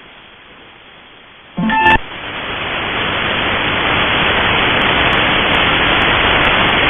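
Shortwave radio receiver audio: faint hiss, then about a second and a half in a brief snatch of musical tones, after which loud static hiss swells up and holds steady as the broadcast signal gives way to bare band noise at sign-off.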